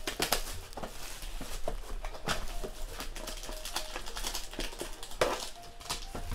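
Plastic shrink wrap crinkling and rustling as a cardboard Playbook football card box is unwrapped and its lid opened, with scattered taps and scrapes of cardboard as the pack inside is lifted out.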